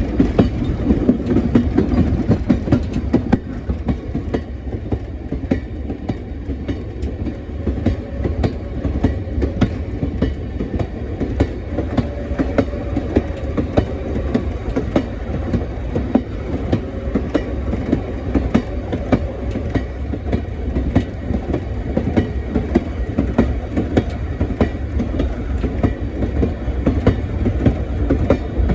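Train rolling along the track with a steady low rumble and the repeated click-clack of wheels over rail joints.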